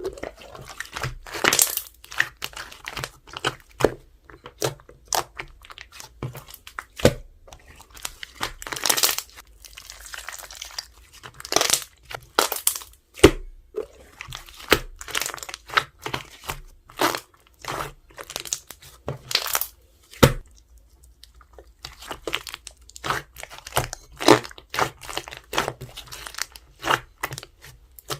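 Hands playing with slime, squishing and poking it: a run of irregular sticky pops, clicks and crackles, with a few short crinkly stretches.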